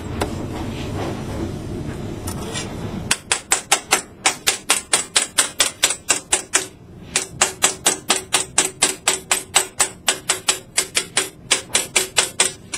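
A knife tapping rapidly around a metal ring cutter pressed into a sheet of sesame nougatine, cutting out a disc. About three seconds in the sharp taps start, about four or five a second, with a short pause midway.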